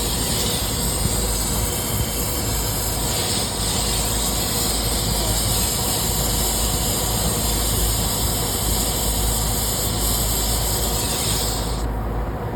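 Brazing torch flame hissing steadily on a refrigeration line while a filter drier is sweated in, then shut off about a second before the end.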